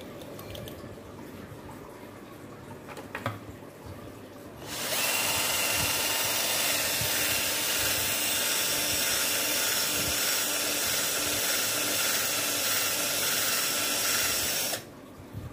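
Cordless drill spinning an electric fan motor's rotor shaft, starting about five seconds in, running steadily for about ten seconds and stopping suddenly. The shaft is being cleaned and polished where the seized bushing wore and scored it.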